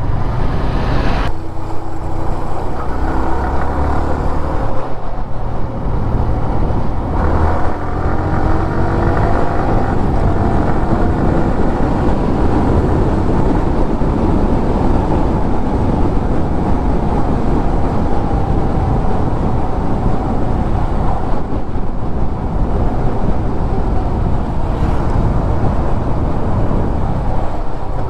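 A road vehicle on the move: its engine running under a steady rush of road and wind noise, the engine note gliding up and down with speed through the middle.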